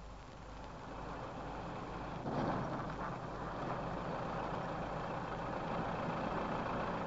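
Early Unimog's diesel engine running steadily under load as it drives a mounted backhoe through the power take-off. It gets louder about two seconds in.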